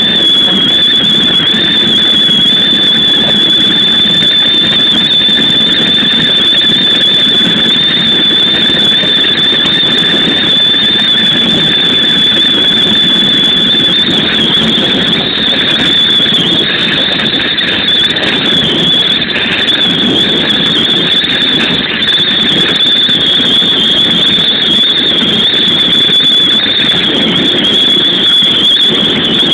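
Loud wind noise from a Keikyu New 1000 series electric train running at speed, with a steady high whistle held throughout over a rushing rumble.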